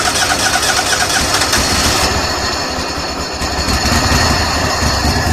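Tractor engine being turned over on the starter in an attempt to start it, a loud continuous churning with a fast pulsing low end.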